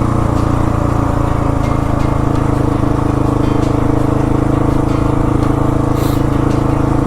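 Husqvarna 701 Supermoto's single-cylinder engine running at a steady, unchanging pitch, with no revving.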